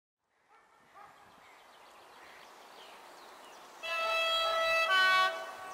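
Railway locomotive horn sounding two notes: a lower note held for about a second, then a shorter, higher note.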